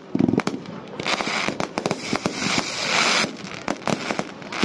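Fireworks display: a rapid run of bangs from bursting aerial shells, with a dense crackling from about one second in to past three seconds, and a sharp bang at the very end.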